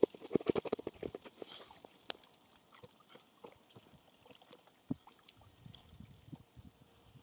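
Weighted cast net being hauled out of the water into a wooden canoe: a quick run of small knocks and splashes in the first second or so, then a few scattered knocks, with a sharp click about two seconds in and a louder knock near five seconds.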